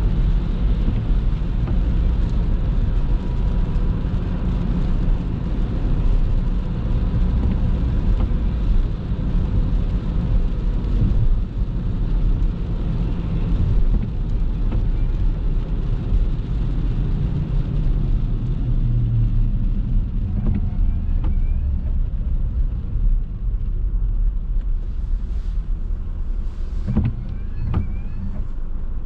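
A car being driven: steady low rumble of the engine and tyres on the road, with a few brief clicks or knocks near the end.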